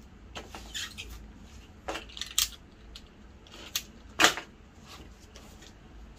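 A string of sharp clicks and knocks, the loudest about four seconds in, as lengths of black picture-frame moulding are handled and pressed into place around a large mounted board.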